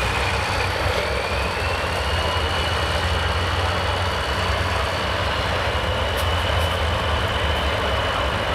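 Heavy diesel engine of a cabover semi truck idling steadily, hooked to the pulling sled and waiting to pull. A thin high whine rises slightly about a second in and then holds steady.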